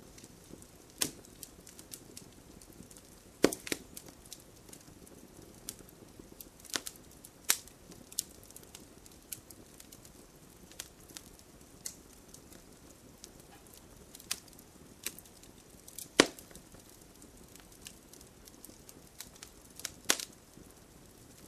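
Wood fire crackling, with irregular sharp pops over a soft steady hiss; a few loud snaps stand out, the loudest about three-quarters of the way through.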